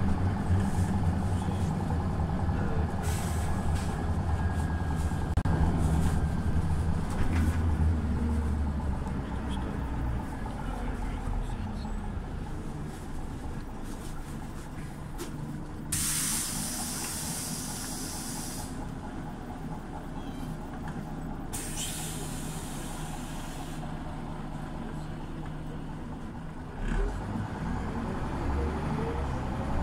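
Scania OmniLink city bus engine running and dying down as the bus slows. Then come two long hisses of compressed air from its air system, a few seconds apart, and a thump near the end as the engine picks up again.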